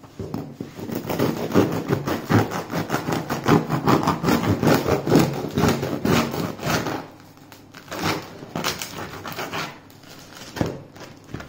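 Knife sawing through the crisp crust and crumb of a freshly baked loaf of bread, in quick back-and-forth rasping strokes for about seven seconds, then a few slower, scattered strokes near the end.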